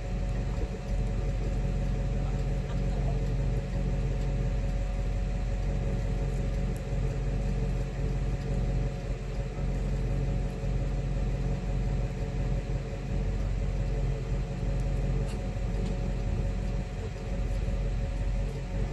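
Truck engine idling steadily, a low even hum with a few faint knocks.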